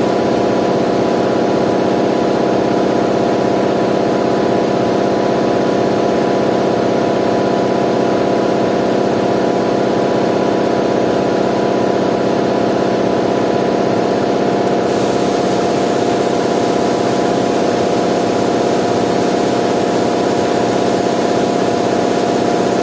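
Steady drone of a running machine: an even, unchanging hum with a hiss above it.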